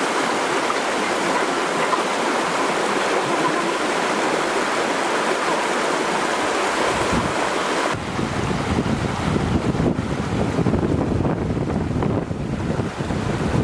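Shallow rocky stream rushing steadily over stones. About eight seconds in, wind buffeting on the microphone adds a loud low rumble.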